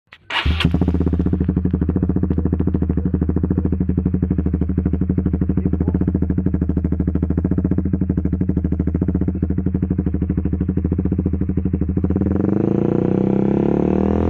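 Honda CBR150's single-cylinder engine running through an aftermarket Proliner exhaust, idling with an even, pulsing note, then climbing gradually in revs from about twelve seconds in.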